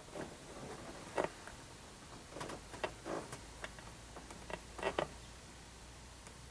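A scatter of faint clicks and knocks from handling. They are separate sharp ticks, the loudest about a second in, with a cluster around three seconds and a double knock near five seconds.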